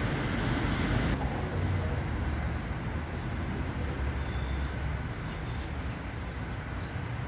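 Outdoor town ambience: a steady low rumble and hiss, with a few faint high chirps in the middle.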